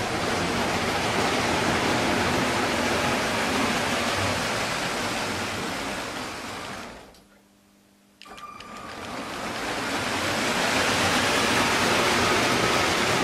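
Motorised Lego passenger train running on plastic Lego track close by: a steady rushing rattle of wheels and motors. It fades out about seven seconds in, cuts back in abruptly a second later and swells again.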